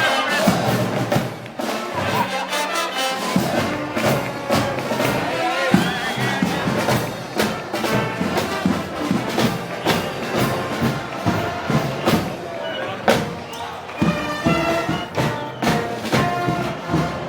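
Brass band playing Moros y Cristianos festival music, brass over a steady beat of drum strokes.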